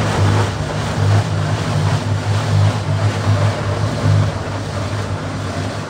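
Automatic car wash heard from inside the car: water spraying hard against the windshield and windows over a low mechanical drone from the wash equipment, which eases about four seconds in.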